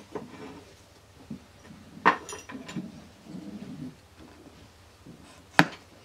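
Metal engine parts knocking as a clutch basket is handled and seated in an open moped crankcase: two sharp clicks, about two seconds in and near the end, the second the louder, with soft handling noise between.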